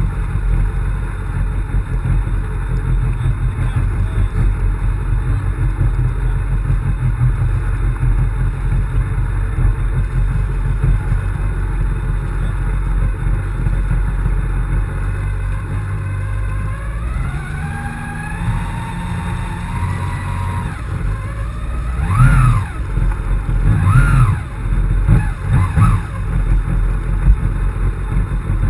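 Yamaha FX160 HO jet ski engine running under way, with a heavy low rumble throughout. About two thirds of the way in, the engine note rises, followed by several sharp loud surges.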